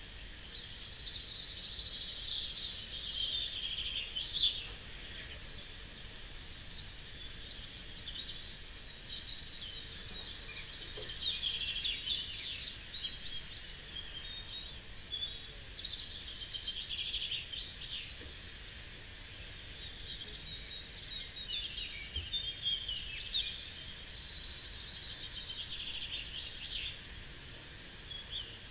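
Several birds chirping and singing at once over a faint, steady background hiss, the calls thickening and thinning in waves.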